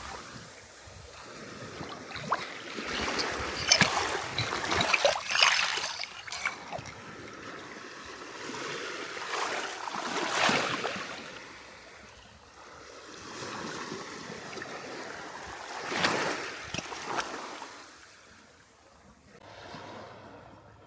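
Waves washing up on a beach, each surge swelling and fading away, about every five or six seconds.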